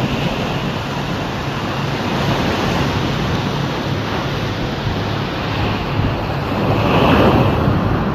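Surf washing onto a sandy beach, with wind buffeting the microphone; the noise swells near the end.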